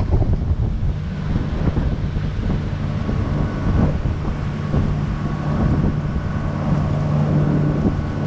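Outboard motor of a pontoon boat running steadily under way, a low hum with a steady tone that settles in about a second in, with gusty wind buffeting the microphone.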